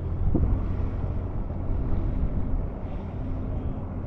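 A motorboat's engine running steadily with a low, even drone.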